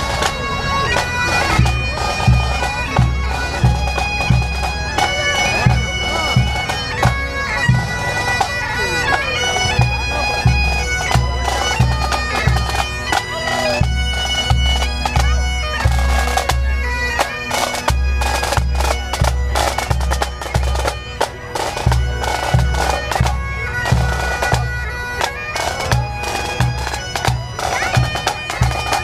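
Pipe band playing: bagpipes sounding a melody over their steady drones, with drums beating a regular rhythm underneath.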